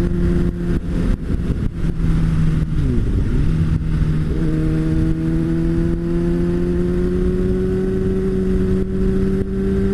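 Sport motorcycle engine running at steady revs under heavy wind buffeting on the microphone. About three seconds in, the engine note dips and comes back up, then climbs slowly as the bike gathers speed.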